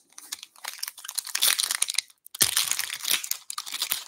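Foil wrapper of a 2023 Bowman Baseball hobby pack being torn open and crinkled by hand, a dense crackling with a brief pause about two seconds in.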